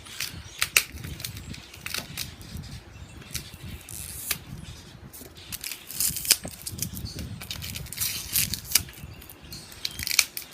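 Hands struggling to open a tightly wrapped package, giving irregular sharp crackles and snaps over low handling rumble.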